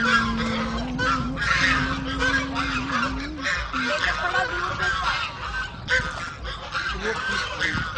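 A flock of white domestic geese honking and chattering on the water, many short calls overlapping without a break.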